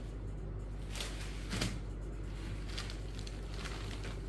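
Cotton saree fabric rustling and brushing as it is handled and laid out on a wooden counter, in several short soft swishes, the loudest about one and a half seconds in, over a steady low hum.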